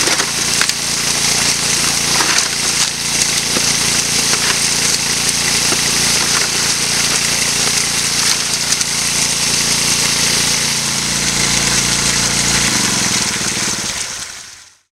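Highbanker at work: the small gas engine of its water pump running steadily under a strong rush of water through the sluice, with scattered small clicks. Everything fades out near the end.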